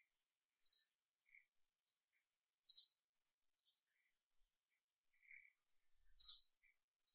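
Forest bird calling: a short, high-pitched call repeated three times, two to three and a half seconds apart, with softer chirps between and a faint steady high-pitched insect whine.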